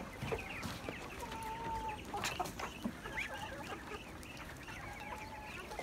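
Chickens clucking in a mixed flock, with many short calls overlapping throughout and a longer drawn-out call twice, about a second and a half in and near the end.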